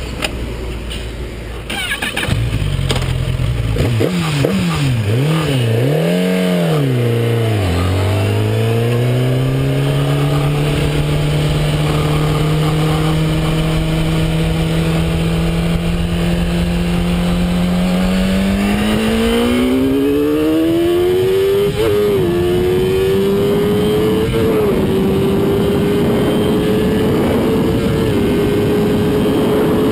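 Kawasaki ZX-10R inline-four sportbike engine from the rider's seat. It revs up and down three times in quick swings, then pulls steadily for several seconds. After that the pitch climbs hard under acceleration, with two brief dips near the end and growing wind noise.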